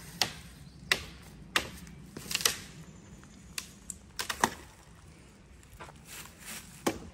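Footsteps crunching and snapping on dry leaf litter and small sticks, in uneven steps with a cluster of crackles around the middle.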